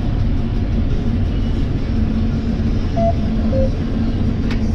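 Combine harvester running steadily under load with a constant low rumble and drone. Two short faint tones sound about three seconds in.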